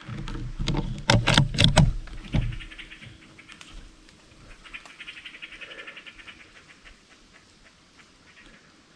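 A quick run of loud rustles and knocks for the first two seconds or so, then a fast, rattling animal chatter in two stretches, starting about two and a half and about four and a half seconds in.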